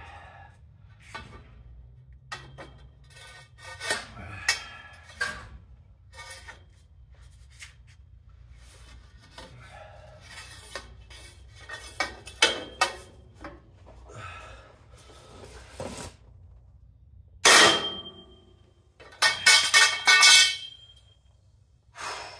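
Steel hand tools, a socket wrench and long breaker bar, clinking and knocking against a truck's rear wheel and axle. Louder metal clangs with a brief ringing note come about two thirds of the way in and again in a quick cluster near the end.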